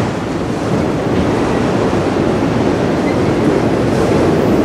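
Freight train's autorack cars rolling slowly past: a steady rumble of steel wheels on rail as the train creeps through a speed restriction.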